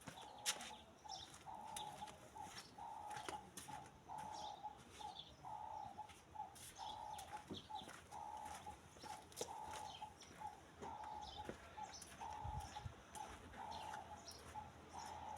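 A bird calling over and over, a steady run of short and longer notes, faint, with scattered light clicks.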